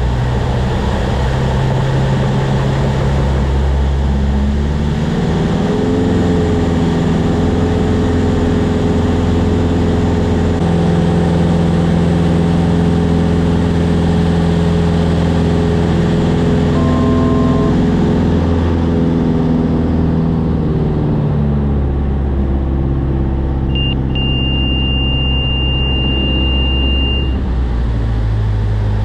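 Van's RV-14A's Lycoming IO-390 four-cylinder engine and propeller running in flight, a steady drone whose pitch rises about five seconds in and drops back down around twenty-one seconds in. A high steady beep of about three seconds sounds near the end.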